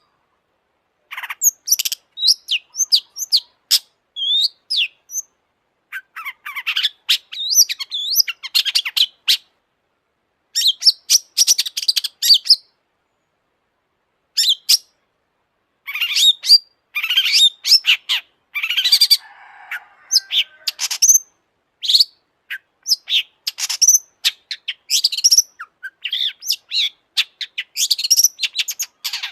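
Long-tailed shrike singing: fast, high chattering and warbling notes in phrases of a few seconds, broken by short silences.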